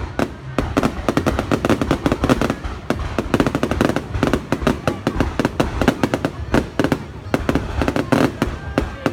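Fireworks going off: a dense, rapid run of sharp bangs and crackles, several a second.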